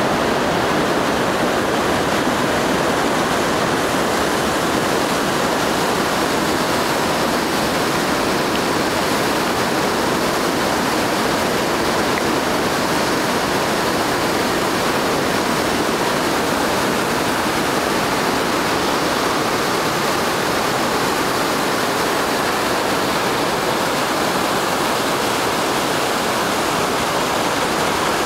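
Whitewater rapids rushing over rocks: a steady, loud, unbroken roar of water.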